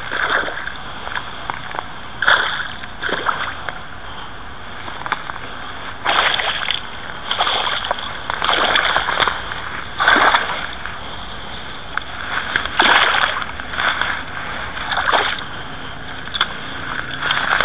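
A small hooked pike, about 50 cm, thrashing and splashing in shallow water at the bank, in irregular bursts of splashing every second or two.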